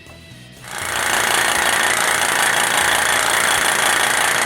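Loud, steady hiss of air spraying from a spray tool, with a motor running underneath, starting suddenly just under a second in.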